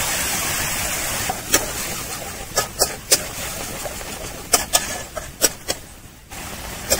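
A thin stream of liquid pours into a metal kadai for about a second. After that a spatula stirs the curry, knocking and scraping against the sides of the pan in a series of sharp, irregular clicks.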